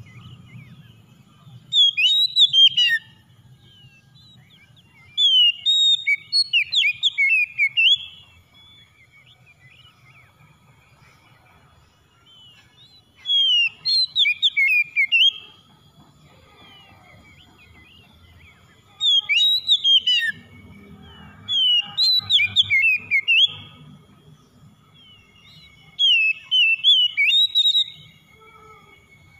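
Oriental magpie-robin (kacer) singing in full song: about six loud bursts of rich, fast-sweeping whistled phrases, each one to three seconds long, with pauses of a few seconds between them.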